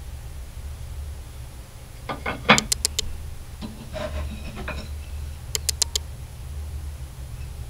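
Thin poplar and alder wood strips clacking against each other and the tabletop as they are handled and set down: a quick run of sharp taps about two seconds in, softer knocks, then another quick run of four taps near six seconds, over a steady low hum.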